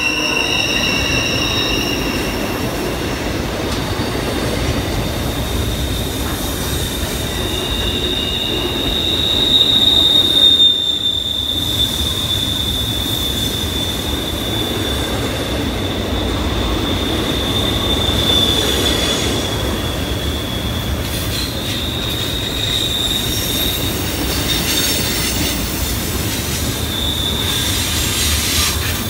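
Double-stack intermodal well cars rolling through a sharp curve, their wheels squealing against the rails in one steady high tone over a continuous low rumble of wheels on track. The squeal drops out briefly about ten seconds in, then returns.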